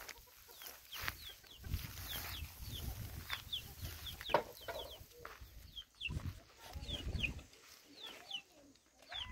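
Chickens clucking, with short, falling high calls repeating about twice a second. Scattered sharp knocks and a low rumble come and go underneath.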